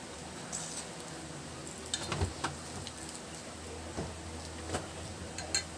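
Eating sounds: a few scattered crunches, clicks and rustles of chewing and handling food, the busiest about two seconds in and again near the end, over a low steady hum.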